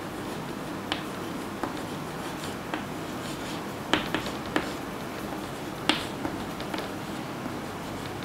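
Chalk tapping and scraping on a blackboard while words are written: irregular sharp clicks, the loudest about four and six seconds in, over steady room noise.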